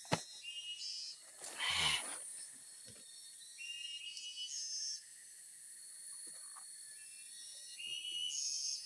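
Insects calling in short high-pitched trills that come and go over a faint steady hiss of forest background. A sharp click comes right at the start, and a brief louder noise comes about two seconds in.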